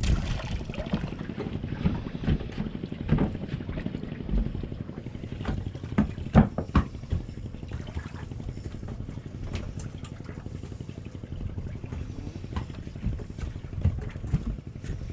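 Fishing boat's engine running with a steady low rumble, with scattered knocks and clatter on deck, the loudest a few about six to seven seconds in.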